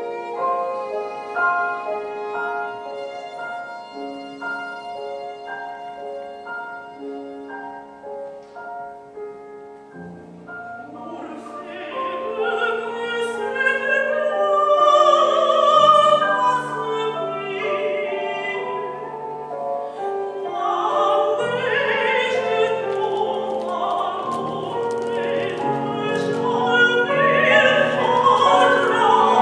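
Live classical chamber music: a viola plays a slow, quiet passage, then about ten seconds in the piano enters with deep notes and a mezzo-soprano begins singing a French art song over viola and piano, growing louder toward the end.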